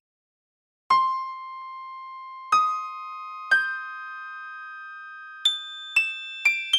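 Background music: a slow melody of single struck keyboard notes, each left ringing, starting about a second in and coming faster near the end.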